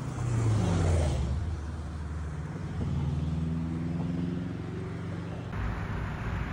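Road traffic: a motor vehicle's engine drops in pitch as it goes by, then rises steadily as a vehicle accelerates away, over a steady hum of traffic. About five seconds in, the background changes abruptly to a brighter street hiss.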